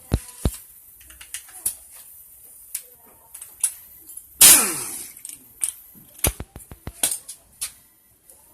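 Metal tools and parts of a Yamaha F1ZR two-stroke engine clinking and knocking during disassembly: a scattered run of sharp clicks, with one louder scraping clatter about four and a half seconds in.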